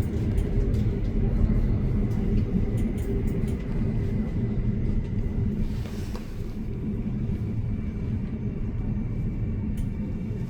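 Steady low rumble of a moving vehicle, with a faint whine and light scattered clicks, and a brief hiss swelling about six seconds in.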